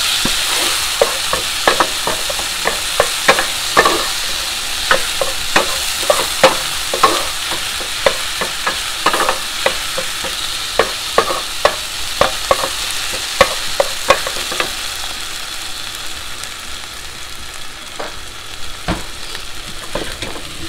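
Tomato, onion and garlic sauce sizzling in olive oil in a frying pan as it is stirred, a utensil repeatedly knocking and scraping against the pan over a steady frying hiss. The knocks come often for most of the time and thin out in the last few seconds.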